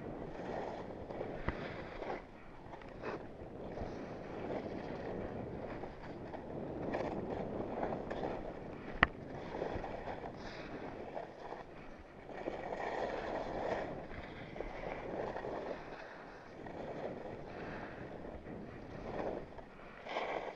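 Skis hissing and scraping over packed, bumpy snow, swelling and fading through the turns, with wind rushing over the microphone. One sharp click about nine seconds in.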